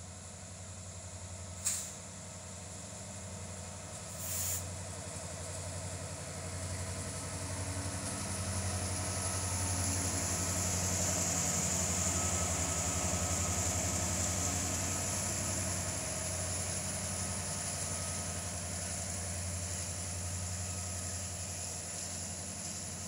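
Norfolk Southern GE diesel-electric freight locomotives, led by ES44AC 1065, passing close by under power: a steady low engine rumble that grows louder as the lead units come alongside and is loudest about halfway through. Two brief sharp sounds stand out in the first few seconds.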